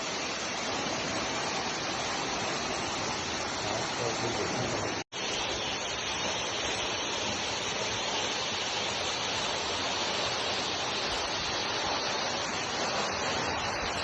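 Steady rush of falling water from a waterfall. It cuts out for an instant about five seconds in, then carries on unchanged.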